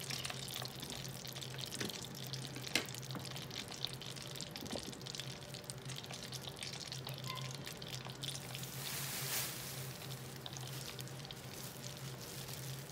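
Hot frying oil bubbling and crackling in a stainless steel pan, with scattered pops and a hiss that grows brighter about eight seconds in, over a steady low hum.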